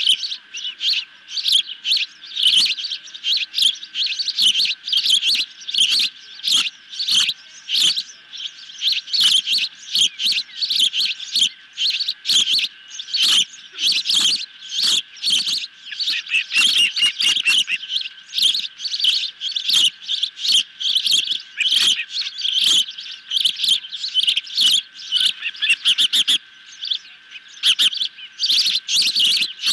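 Ospreys at the nest calling: rapid, repeated high-pitched chirps, several a second, going on almost without a break.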